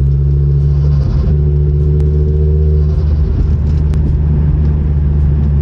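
Ford Focus RS MK2's turbocharged five-cylinder engine running through a KMS Thunderstorm exhaust with two rear boxes, blipped lightly: the note steps up about a second in and eases back near three seconds. It sounds a lot quieter than the straight-through system it replaced.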